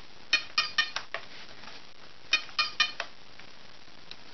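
Sharp, ringing clicks in quick runs of about four, each run about two seconds after the last: one near the start, one about two seconds in, and another beginning at the very end.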